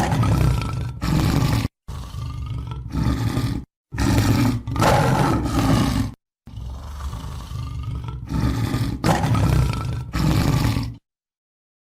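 Tiger roaring and growling in a run of deep, rough calls, broken by brief silent cuts, stopping about eleven seconds in.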